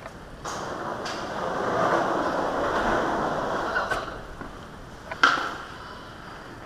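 Skateboard wheels rolling across a concrete floor, swelling and then fading, with one sharp clack about five seconds in.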